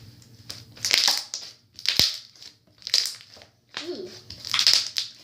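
Hand-worked slime being squeezed, making about four short crackling pops of trapped air, roughly a second apart.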